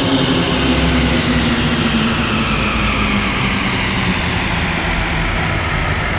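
Horror ambience sound effect: a loud, dense rumbling drone with a low hum, its upper hiss slowly sinking in pitch.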